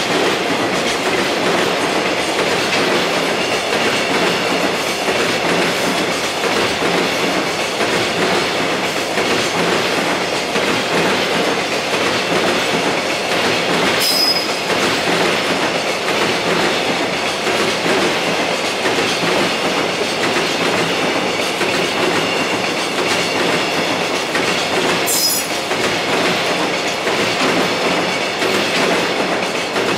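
Container wagons of a long freight train rolling past with a steady rumble and clatter of wheels on rail. There are two brief high squeaks, about 14 and 25 seconds in.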